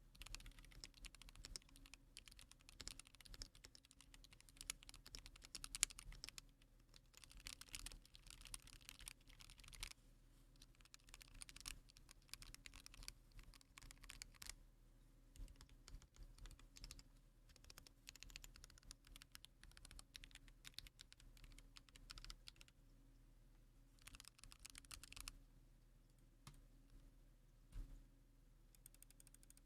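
Typing on a computer keyboard: quick runs of key clicks in bursts of a second or a few seconds, broken by short pauses, with a faint steady hum beneath.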